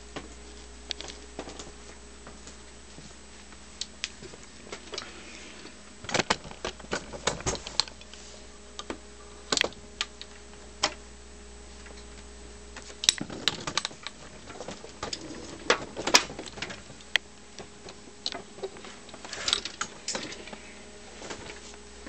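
Irregular clicks and knocks from an Olympia Model 50/51 electric typewriter being handled and having its power cord plug pushed into the socket at the back, over a steady low hum. The clicks come in small clusters, the loudest about sixteen seconds in.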